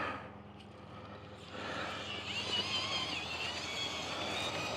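RC buggy's electric motor and gearbox whining as it drives, starting about a second and a half in, the pitch wavering up and down with the throttle.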